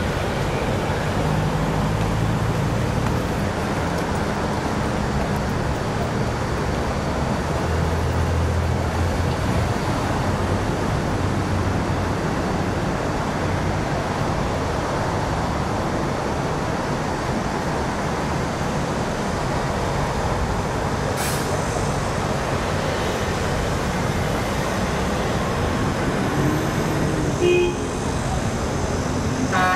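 Steady road traffic noise, a continuous low rumble and hum of passing vehicles, with a single brief click about two-thirds through.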